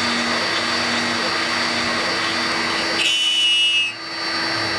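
CNC router spindle with a 1/8-inch bit milling acrylic, running steadily at 15,000 rpm and cutting cleanly without melting the plastic. About three seconds in the cut turns to a high-pitched squeal for about a second, then briefly drops away before the steady cutting noise returns.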